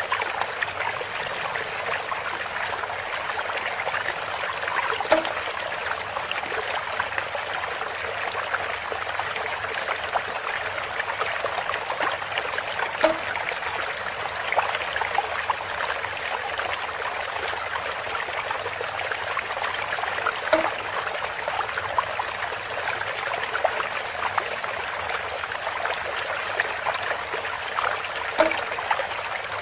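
Water trickling and splashing steadily from a bamboo spout, with a brief low tone about every eight seconds.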